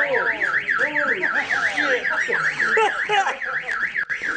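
Car alarm sounding: a loud electronic siren tone warbling up and down about four times a second, with short rising-and-falling pitched cries underneath it.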